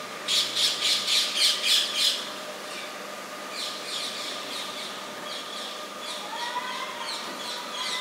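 Rose-ringed parakeets squawking: a rapid run of about seven loud, harsh calls in the first two seconds, then quieter scattered calls.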